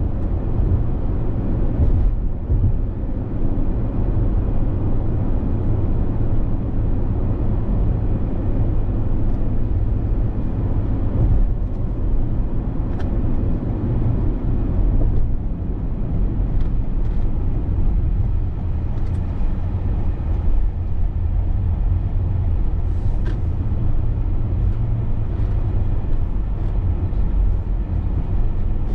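Steady low rumble of a vehicle's engine and road noise heard from inside the moving cab, with a few faint ticks now and then.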